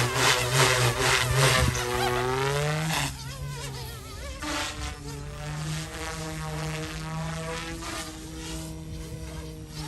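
Buzzing whine of the YXZNRC F280 RC helicopter's brushless direct-drive motors and rotors in flight. The pitch rises about two to three seconds in, then the sound drops noticeably quieter and wavers.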